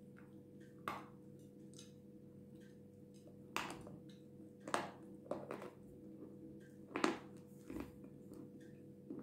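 Bites and chewing of a dry, powdery chunk of jasmine edible clay: about seven irregular crunches, the loudest about seven seconds in.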